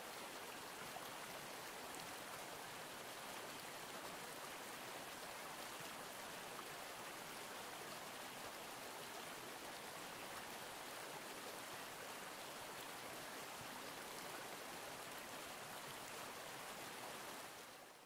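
Steady rushing of a stream's running water, with no bird calls, fading in at the start and out near the end.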